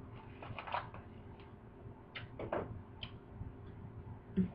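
Faint eating sounds: scattered soft clicks and mouth smacks while chewing, with a short low hum of the voice near the end.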